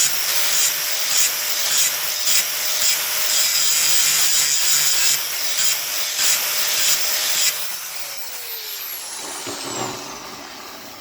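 Angle grinder grinding the steel bevel of a splitting axe, a loud hissing grind that surges and eases as the disc bites. About seven seconds in, the grinder is switched off and its whine falls away as the disc spins down.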